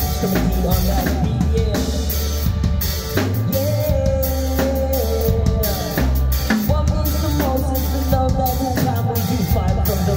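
Live band playing an instrumental jam: drum kit with a steady kick and snare beat, bass guitar, keyboard and a lead electric guitar line.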